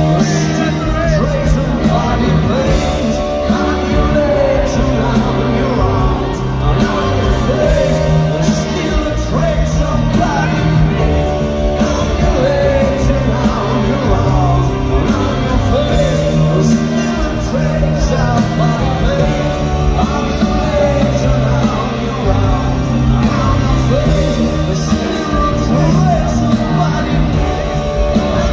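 A rock band playing live in a large hall, with electric guitar and keyboards, and a man singing over them.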